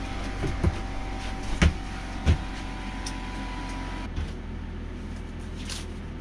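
Air compressor running with a steady low hum, with a few sharp knocks and clunks of handling about the workbench.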